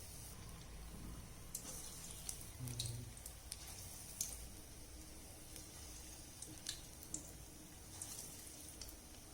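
Urad dal batter bondas deep-frying in hot oil: a faint, steady sizzle with scattered crackles and pops.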